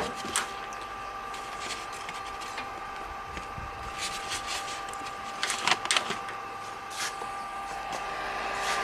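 Light clicks and handling knocks over a steady background hum that carries two faint, high, steady tones.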